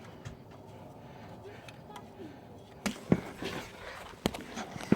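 Hand tools and metal engine parts being handled. After a quiet first few seconds there are four or so sharp clicks and knocks spread over the second half.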